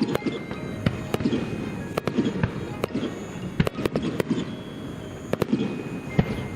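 Aerial fireworks bursting: many sharp bangs at irregular intervals over a continuous rumble of shells going off.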